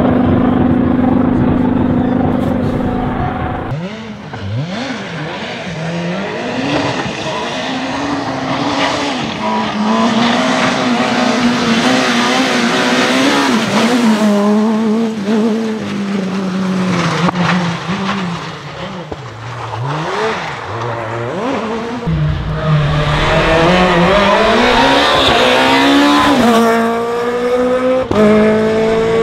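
Peugeot 207 S2000 rally car's two-litre four-cylinder engine at full stage speed. A steady held note is followed by revs that repeatedly climb and drop sharply with each gear change, over several passes.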